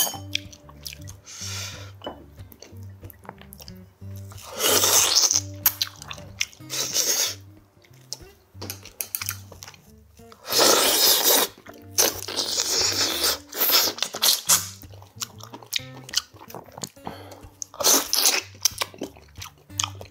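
Close-miked eating of gamjatang pork bones: loud bursts of sucking and chewing as meat is pulled off the bones, each lasting about a second, several times. Soft background music with a low repeating bass runs underneath.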